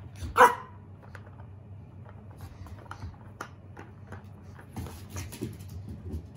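A Shiba Inu puppy gives one short bark about half a second in, the loudest sound. Scattered light clicks and brief rustles follow as a lint roller is pushed and rolled over a shaggy rug near the puppy.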